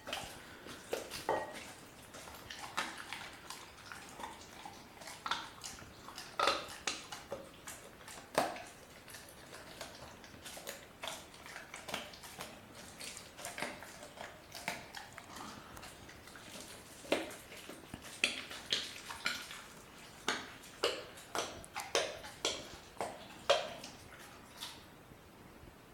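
German Shepherd puppy chewing a raw chicken quarter: irregular wet crunching and cracking of bone. The crunches come faster and louder in the second half, about two a second.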